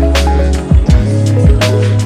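Music with deep, sustained bass notes and a drum beat of low kicks and snare hits.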